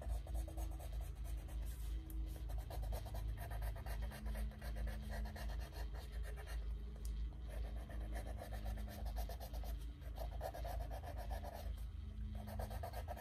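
Pencil scratching in quick back-and-forth strokes over paper laid on a stretched canvas, tracing a template's lines firmly so the graphite transfers. The strokes come in runs with short pauses between them.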